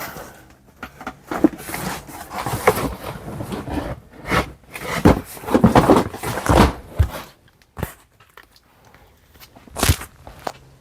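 Things being handled and shifted around among stored boxes and belongings: irregular rustling and scraping with short knocks, and a couple of sharper clunks near the end.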